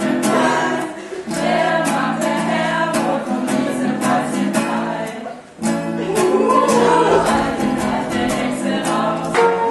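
Music with singing voices over a steady beat, briefly dipping in loudness about a second in and again past the middle.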